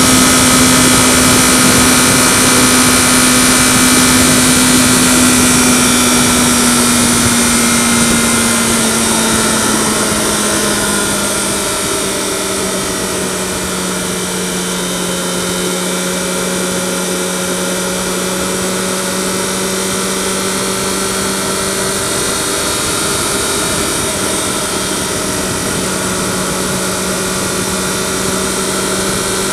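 Yamaha FZ6R motorcycle's 600 cc inline-four engine running steadily under a loud hiss of wind and road noise. The engine note sinks gradually over the first ten seconds or so, drops a touch more about eleven seconds in, then holds at the lower pitch as the bike carries on.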